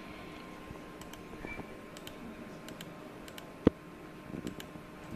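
Scattered clicks from a computer mouse and keyboard while probes are picked from a list. One heavier knock comes a little past halfway, over a faint steady hum.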